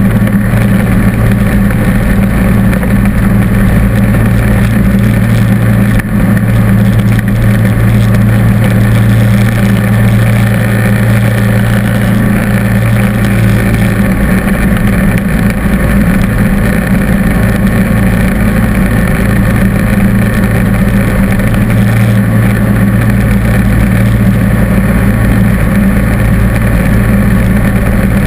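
John Deere D140 lawn tractor's V-twin engine running steadily under load, driving its snowblower attachment as it throws snow, loud and close to the microphone.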